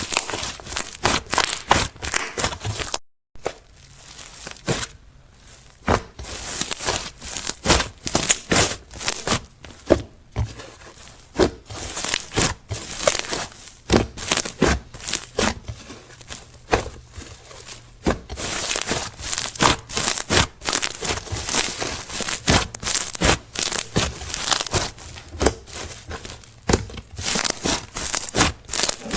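Slime being squished, stretched and poked by hand, giving dense, irregular sticky crackles and pops, with a brief break about three seconds in.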